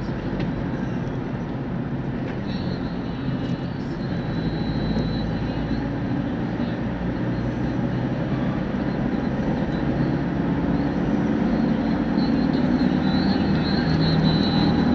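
Steady road and engine noise heard from inside a moving car's cabin at highway speed, growing slightly louder toward the end.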